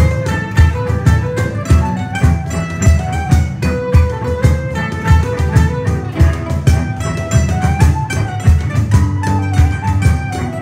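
Live acoustic band playing a jig: mandolin, cello and flute over a steady beat on hand percussion, the low thumps coming a few times a second.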